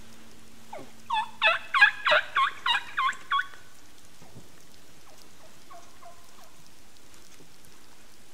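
Wild turkey calling: a quick run of about eight loud notes starting about a second in, then a fainter run of about five similar notes a couple of seconds later, likely from another bird further off.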